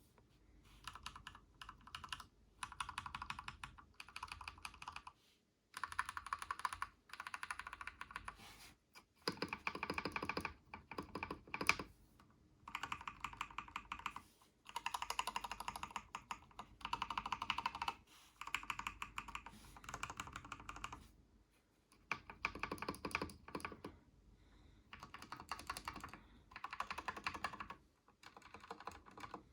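Typing on a Ducky One 2 Mini mechanical keyboard with Cherry MX Red linear switches lubed with Super Lube. The keystrokes come in fast runs of clicks lasting a few seconds each, with short pauses between the runs.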